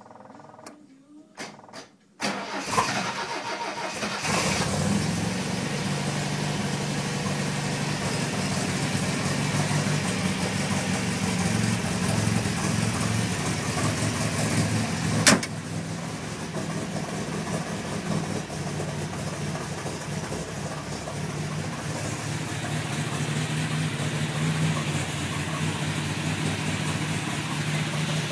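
A 1974 MGB's 1.8-litre B-series four-cylinder engine being started for the first time after a nut-and-bolt rebuild: the starter cranks it about two seconds in, it catches a couple of seconds later and settles into a steady idle. A single sharp click sounds about halfway through, after which the engine runs a little quieter.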